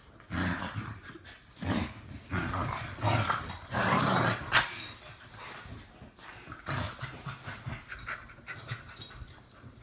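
Dogs play-wrestling: a run of short, irregular dog sounds, the loudest about four seconds in.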